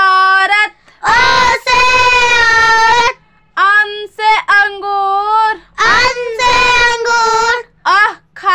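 A child's high voice chanting the last Hindi vowels with their picture words (औ से औरत, अं से अंगूर, अः से खाली) in short sung phrases with brief pauses between them.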